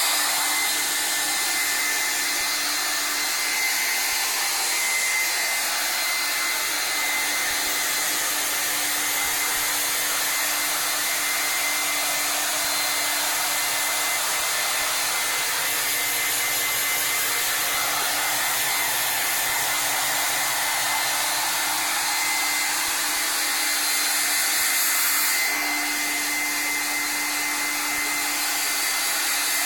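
Handheld hairdryer blowing steadily, a loud even rush of air with a steady motor hum; the tone shifts slightly about 25 seconds in.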